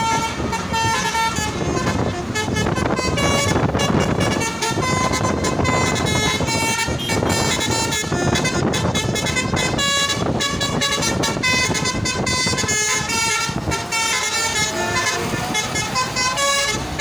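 Truck basuri (telolet) musical horn playing a tune in quick successive notes, over the noise of a running truck.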